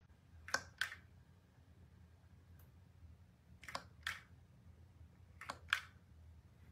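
Plastic reacher-grabber tool snapping its jaws, three pairs of sharp clacks a couple of seconds apart over a faint low hum.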